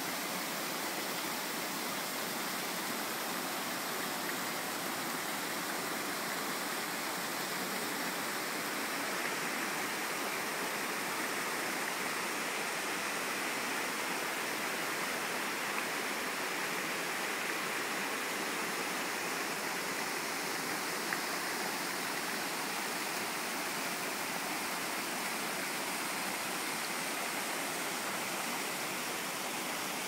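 Steady rush of a white-water stream cascading over rocks.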